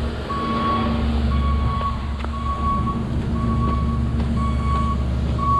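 Backup alarm on construction equipment beeping about once a second, each beep about half a second long, over a diesel engine running steadily.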